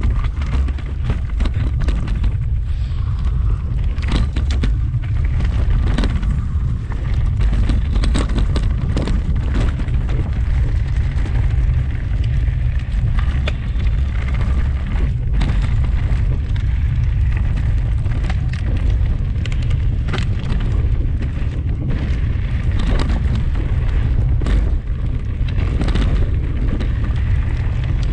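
Wind buffeting the microphone as a steady deep rumble, with frequent clicks and rattles from a mountain bike jolting over the stones of the trail.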